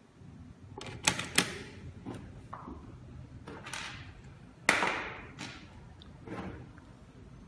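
Metal parts of a fingerprint door lock being handled during assembly: scattered clicks and knocks, with a pair of sharp clicks about a second in and the loudest knock, with a short ring-out, near the five-second mark.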